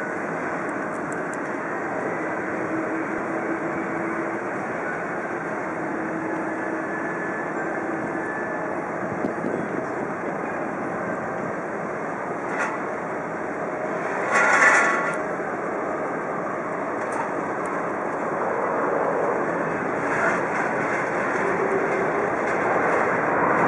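Jet engines of a Boeing 777-300 airliner heard from a distance as it comes in to land: a steady noisy rumble, with a brief louder rush about fourteen seconds in. The noise grows louder toward the end as the jet rolls out on the runway.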